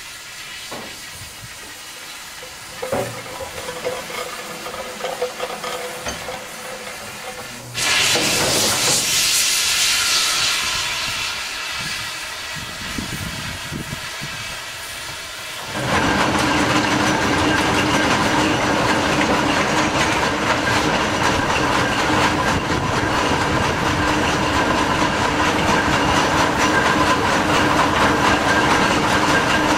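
Ruston steam excavator working. Quieter mechanical running at first, then a sudden loud hiss of steam about eight seconds in that dies away over a few seconds. From about halfway its steam engine and gearing run loudly and steadily with a hiss while the bucket is hoisted out of the heap.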